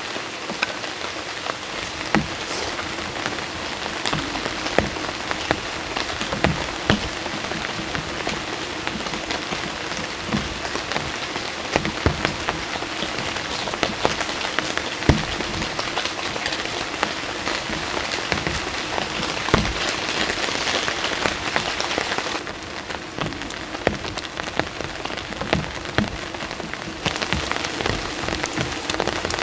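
Steady rain falling, with many separate heavy drops clicking onto a surface. The rain hiss eases off for about five seconds near the end, then comes back.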